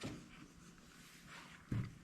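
Faint handling of tools and parts during hand work on a tractor: a soft knock at the start and a dull thump near the end.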